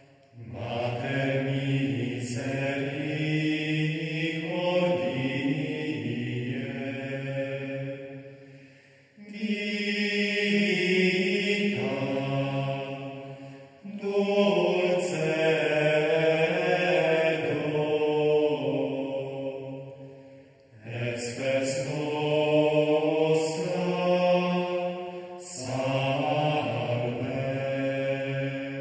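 Slow sung religious chant: several long held phrases, each a few seconds long, with short breaks between them.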